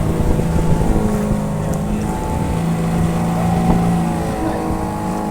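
A motorboat's engine running steadily under way, a droning hum that shifts slightly in pitch.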